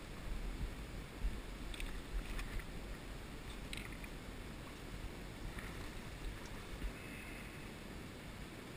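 Shallow river water flowing and lapping right at the microphone, with an uneven low rumble, and a few faint, short, high-pitched ticks about two and four seconds in.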